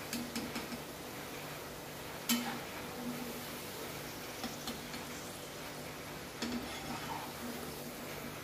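Potato fries sizzling in hot oil in a kadhai at the end of their first, partial fry, with a metal slotted spoon clinking and scraping against the pan as they are lifted out. The loudest clink comes about two seconds in.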